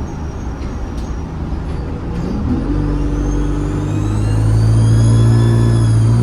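ADL Enviro 200 bus engine pulling under load from about two and a half seconds in, with a high turbocharger whistle that rises steadily in pitch, peaks, and starts to fall near the end.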